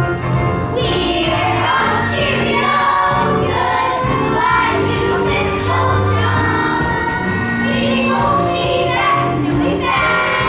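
Music with a choir singing over sustained instrumental accompaniment.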